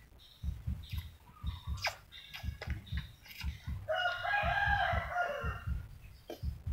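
A rooster crows once, starting about four seconds in: a single crow lasting about a second and a half that drops away at the end. Under it there is a steady run of soft low thumps, several a second.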